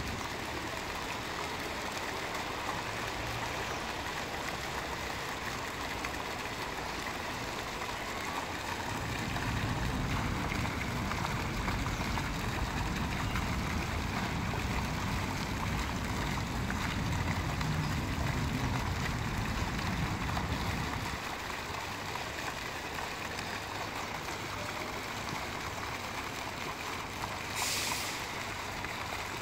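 Fountain jet splashing steadily into an ornamental pool, with a low rumble of passing traffic from about nine seconds in to about twenty-one seconds in, and a brief hiss near the end.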